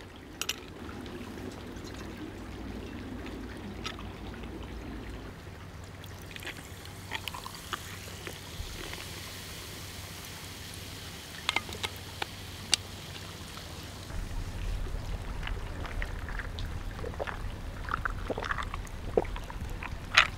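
A clear fizzy drink poured from a plastic bottle into a glass mug, splashing and fizzing for several seconds in the middle, with a few sharp clicks.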